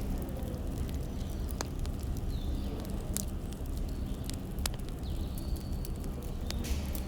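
Wood fire crackling: scattered sharp pops and snaps over a steady low rumble, with a few faint thin high whistles now and then.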